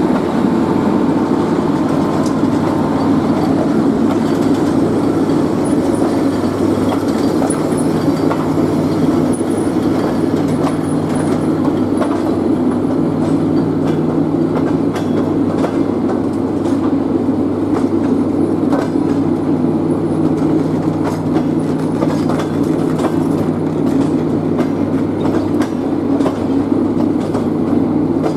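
Passenger train hauled by a ChS8 electric locomotive passing close by: a steady, loud rumble of wheels on rails with a low hum running under it and frequent short clicks from the wheels and rail joints.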